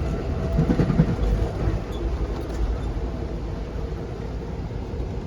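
Steady low rumble inside a moving passenger train car.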